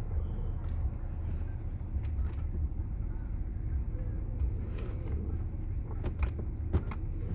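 Car running with a steady low rumble, heard from inside the cabin, with a few sharp clicks or rattles near the end.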